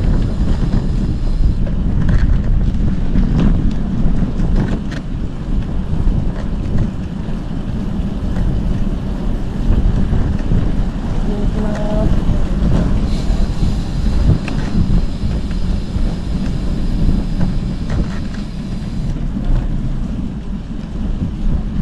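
Wind rushing over the microphone of a moving bicycle, a steady low rumble mixed with road noise.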